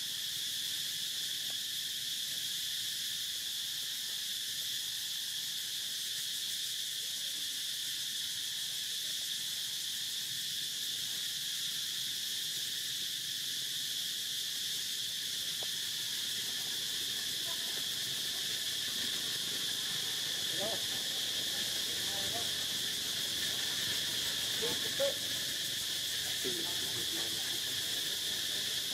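Steady insect chorus, an even high-pitched buzz that runs without a break, with a few faint short calls in the second half.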